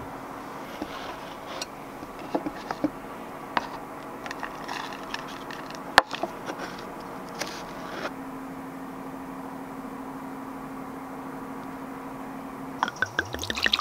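A wooden spoon scoops crumble out of a small cast iron Dutch oven and serves it into a wooden cup, giving light scrapes and knocks of wood on iron and wood, with one sharp click about six seconds in. A faint steady hum runs underneath.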